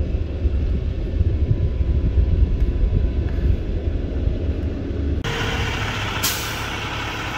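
A low rumble for the first five seconds, then a semi-truck's diesel engine running close by as the tractor-trailer backs slowly, with a short hiss of air about a second after it comes in.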